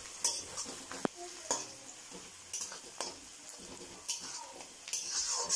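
Sliced onions sizzling in hot oil in a steel kadai, browning on high flame, while a metal spatula stirs them, scraping and clicking against the pan several times.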